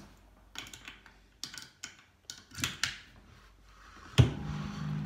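Scattered clicks and knocks of objects being handled, then one sharp bump about four seconds in, followed by a steady low tone.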